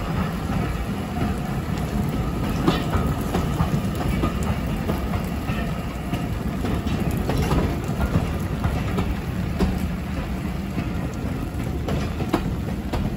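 Passenger coaches of a departing steam-hauled train rolling past close by at low speed, their wheels clicking and clattering over the rail joints.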